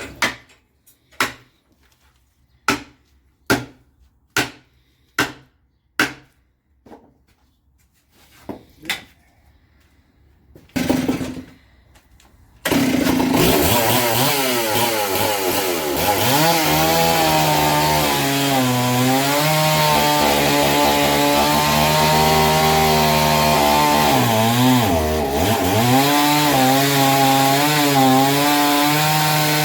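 A run of short sharp sounds about a second apart, then a chainsaw starts abruptly about thirteen seconds in and runs loud and steady while cutting through a tree stump. Its pitch dips and recovers several times as the chain bogs into the wood.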